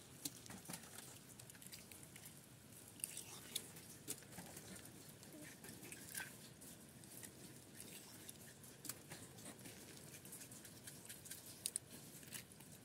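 Faint, irregular wet clicks and squelches of bare hands gutting freshly harvested rainbow trout, pulling out the innards over a bucket of fish.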